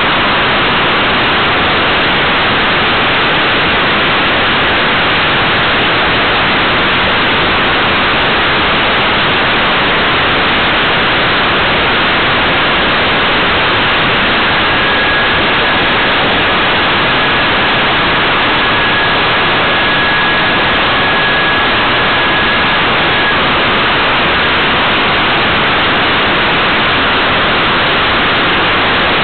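Steady, even hiss from a small onboard camera riding on a radio-controlled model aircraft in flight, with no motor heard. A faint thin whistle comes in for about ten seconds midway.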